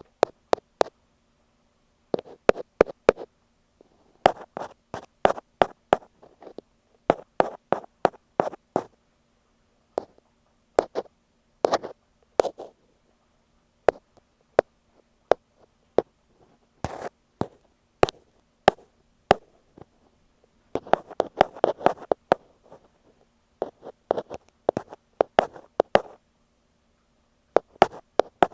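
Ear pick tapping and scratching directly on an earphone microphone: irregular sharp clicks in small bunches, with a quicker, denser flurry about three-quarters of the way through, over a faint steady hum.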